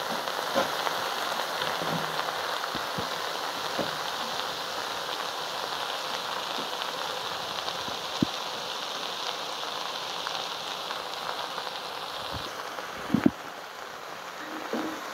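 A pot of chopped greens cooking on the stove, giving a steady, dense hiss of steaming and sizzling. A few light clicks sit over it, with a louder knock about 13 seconds in.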